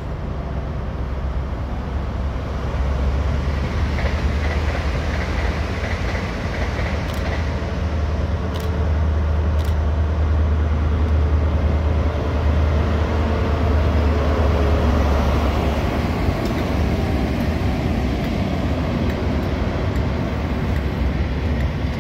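Pair of Class 43 HST diesel power cars running light past the platform, a deep engine drone that grows louder as they come close and passes, easing off near the end. A few sharp clicks sound near the middle.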